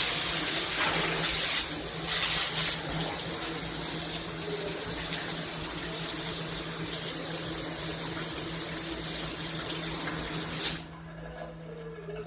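Water spraying steadily from a handheld shower head, a loud even rush that cuts off suddenly about eleven seconds in.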